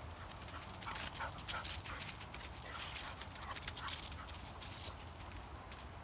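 Footsteps crunching and rustling through a thick layer of dry fallen leaves, a quick irregular run of crackles that is busiest in the first few seconds.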